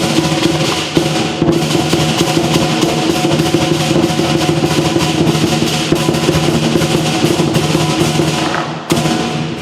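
Chinese lion dance percussion: the big lion drum played in a fast roll of strokes under clashing cymbals, with a steady low ringing underneath.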